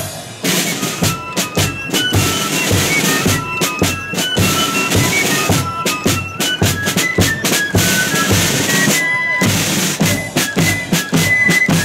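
Marching flute band playing: flutes carrying a stepping melody over snare drums and a bass drum beating time.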